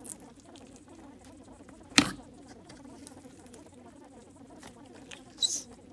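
Jelly cube slime and glue slime poked and squished by fingers: small sticky clicks and pops, with one sharp click about two seconds in and another pair near the end, over a faint low steady hum.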